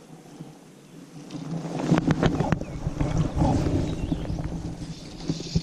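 Low rumbling noise on the microphone that swells about a second and a half in and fades near the end, with a few sharp clicks about two seconds in and another just before the end.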